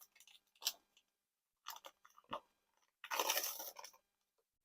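A plastic blind bag crinkling as it is torn open by hand: a few short crackles, then a longer crinkle about three seconds in.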